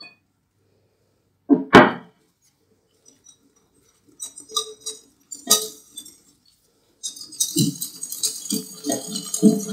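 A single loud knock about two seconds in, a few scattered clinks, then fast, rhythmic clinking and tapping of a metal utensil against a mixing bowl as batter is mixed.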